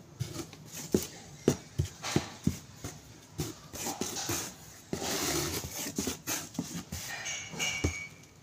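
A hand patting and smoothing sawdust bedding in a cardboard box: soft thumps against the cardboard, and a longer rustle of the sawdust being pushed about five seconds in.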